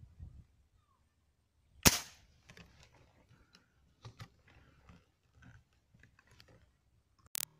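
Airgun shot: a single sharp crack about two seconds in, followed by faint clicks and handling knocks. A second, fainter sharp crack comes near the end.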